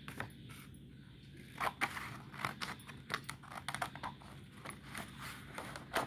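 A sheet of drawing paper rustling as it is handled and cut with scissors. A run of quick, irregular crinkles and snips starts about one and a half seconds in.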